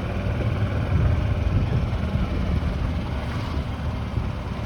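Golf cart running as it drives along, a steady low engine rumble with some wind on the microphone.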